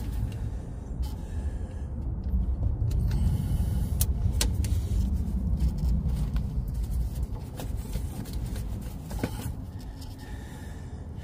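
A steady low rumble with a handful of sharp clicks and taps from plastic EVAP vapour-line quick-connectors being pried and worked loose with a small flathead screwdriver.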